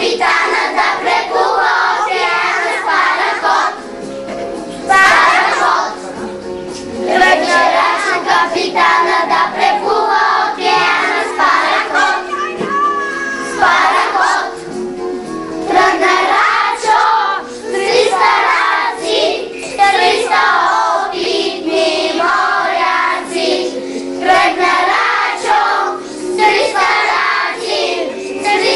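A group of young children singing a song together in chorus, with musical accompaniment underneath.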